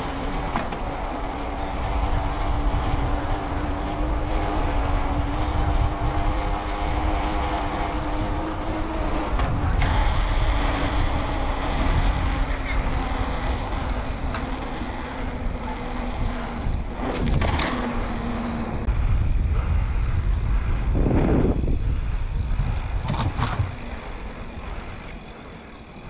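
Mountain bike rolling over paving, heard from a handlebar-mounted camera: low wind rumble and tyre noise, with a steady hum for most of the ride that fades out, and a few sharp knocks near the end.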